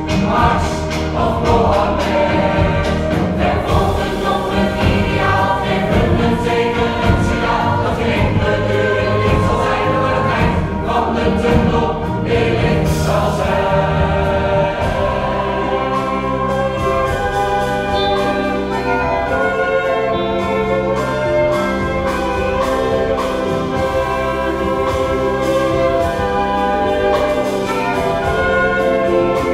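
A large mixed choir of men and women singing with instrumental accompaniment, moving into long held notes about halfway through.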